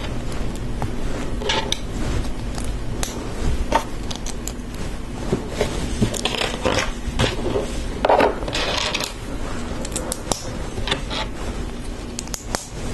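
LEGO bricks being handled and pressed together: scattered sharp plastic clicks and brief scraping rustles at irregular intervals.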